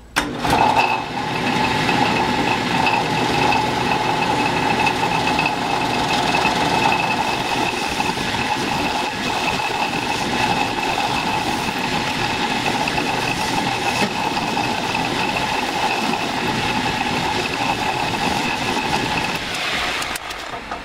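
Small metal lathe switched on and running while turning down the end of a bar to a set diameter, with a steady whine in two pitches. It starts abruptly and winds down just before the end.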